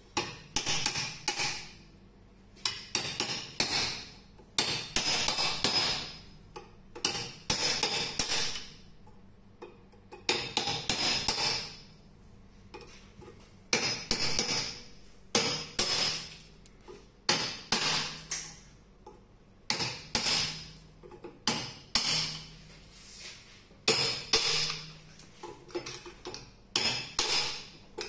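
Hammer blows on a steel screwdriver driven into a gear-shift mechanism clamped in a vise, with sharp metallic strikes and a short ring. They come in clusters of a few blows with pauses of a second or two between.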